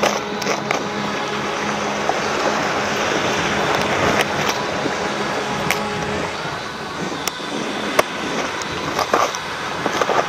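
Steady rush of shallow waves washing around the angler's legs, with a few sharp clicks as a plastic lure box and tackle are handled.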